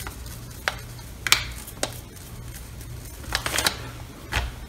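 A stiff brush sweeping and tapping on a glazed ceramic bowl and paper, knocking off excess gold powder: a few light clicks and short brushing scrapes, with a cluster of them a little after halfway. A steady low hum sits underneath.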